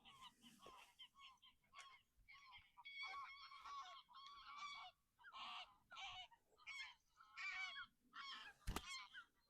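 Geese honking: a run of short, repeated calls, several overlapping. About three-quarters of the way through there is a single sharp knock.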